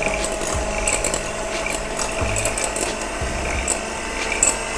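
Electric hand mixer running at low speed with a steady motor whine, its beaters breaking up stiff, hot cooked choux dough in a glass bowl to cool it, with irregular knocks from the beaters in the bowl.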